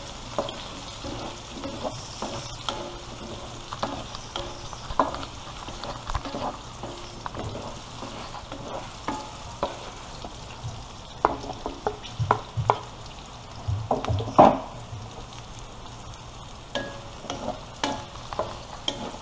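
Diced potatoes, carrots and bell pepper sautéing in oil in a metal wok: a light sizzle under the repeated scrapes and knocks of a wooden spatula stirring them against the pan, the loudest knock about two-thirds of the way through.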